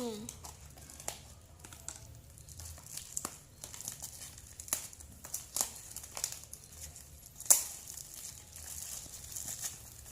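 Parcel packaging crinkling and rustling as it is unwrapped by hand, with scattered sharp crackles and tearing; the loudest crackle comes about seven and a half seconds in.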